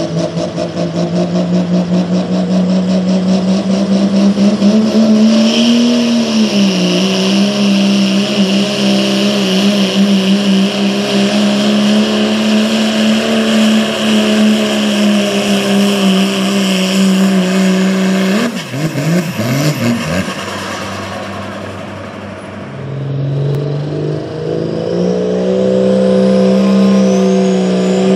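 Diesel pickup truck engine held at high revs under full load while pulling a weight sled, with a high whine over it for much of the pull. About two-thirds of the way in, the engine note breaks off and wavers as the run ends. After a quieter spell, a second diesel pickup's engine revs up near the end and holds high.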